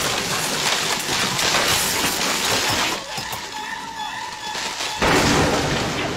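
Crashing and shattering of debris falling through construction scaffolding, a dense clatter for about three seconds, then another sudden loud crash about five seconds in.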